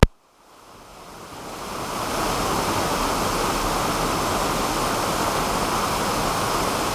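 Waterfall rushing steadily, swollen with monsoon rain; it fades in over the first two seconds after a sharp click.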